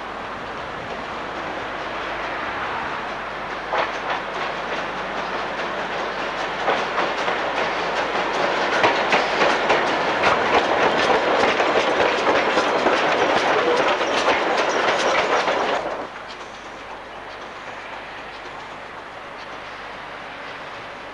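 A Victorian Railways J class steam locomotive running past close by, getting louder as it nears, with sharp clicks from its wheels over rail joints. About sixteen seconds in the sound drops abruptly to a quieter, steadier running noise.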